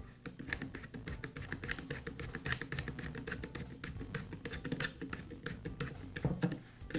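Flat-blade screwdriver turning a screw into a stapler's magazine: a rapid, irregular run of light clicks and scrapes as the blade works in the screw slot.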